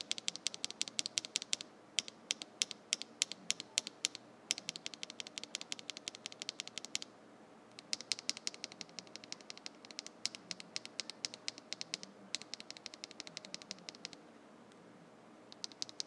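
An Akko CS Silver linear mechanical keyboard switch, held loose between the fingers, is pressed and released in quick runs of clicks, several a second. It is stock and unlubed at first; about halfway through, a switch lubed with Krytox 205g takes over, which is less pingy.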